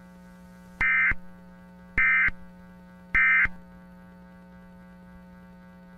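Three short bursts of Emergency Alert System digital data tones (the SAME end-of-message code), about a second apart, marking the end of the alert. A steady low hum runs underneath.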